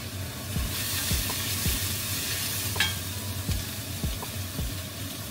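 Food sizzling in a frying pan, with soft knocks of a cooking utensil about every half second.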